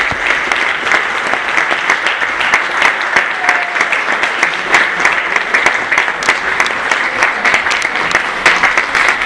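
Large audience applauding loudly and steadily: many people clapping at once in a dense, continuous patter.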